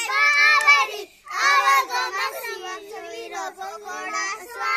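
Children singing a traditional festival folk song in Hindi, with a short break about a second in before the singing picks up again.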